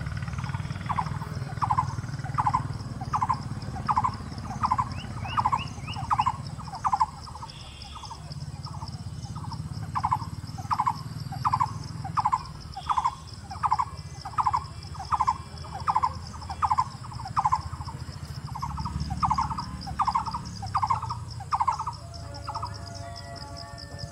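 Blue-throated barbet calling: a loud rolling note repeated about one and a half times a second, pausing for about two seconds a third of the way in, then going on and stopping shortly before the end. A steady high insect buzz runs underneath.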